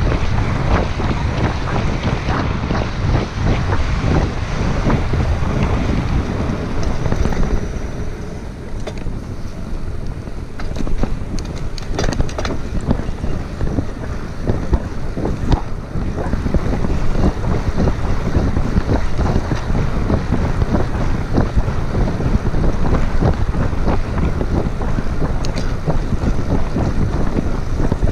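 Wind buffeting the GoPro Hero5's microphone on a moving gravel bike, over the rush of tyres on wet pavement. It eases for several seconds about a third of the way in, with a few sharp clicks, then picks up again.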